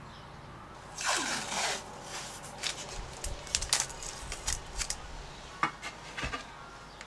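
Scraping, rubbing and light clicking knocks as a blue tool is poked into the gap behind a bench to fish out something dropped there. About a second in comes a sliding scrape that drops in pitch, followed by a run of irregular small knocks and taps.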